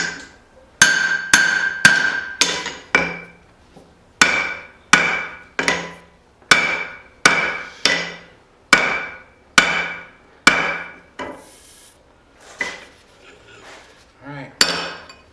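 Blacksmith's hand hammer striking steel on the anvil, each blow ringing, at about one and a half blows a second. The run of blows stops about ten seconds in, and one or two more land near the end.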